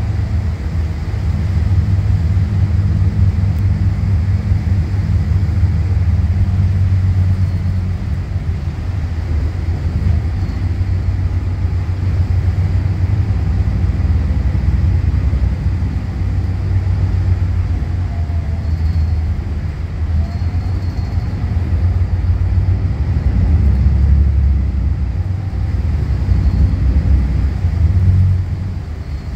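Volvo B8RLE bus's diesel engine and ZF Ecolife automatic transmission heard from inside the passenger cabin while the bus is under way: a loud, steady low rumble that swells and eases a little as it drives.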